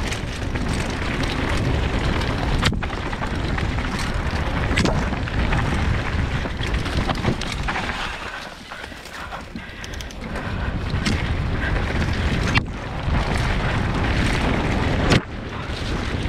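Mountain bike descending a dirt forest singletrack: wind buffeting the helmet camera's microphone over the rush of tyres on dirt, with occasional sharp knocks and rattles from the bike over bumps. It eases off for a couple of seconds about halfway through.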